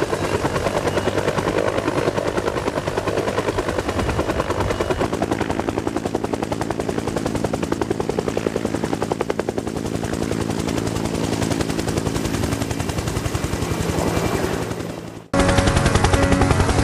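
Helicopter sound: rapid, steady rotor-blade chop over engine noise, with a steady low hum coming up about five seconds in. Near the end it cuts off abruptly and a different, louder pulsing helicopter-like sound starts.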